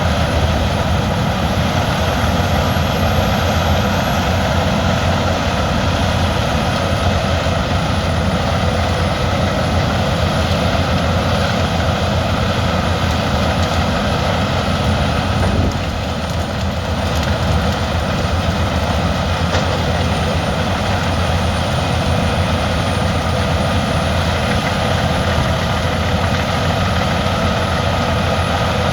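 Albach 700 hp biomass wood chipper running under load, chipping brashwood: a loud, steady drone with a faint high whine, dipping briefly about halfway through.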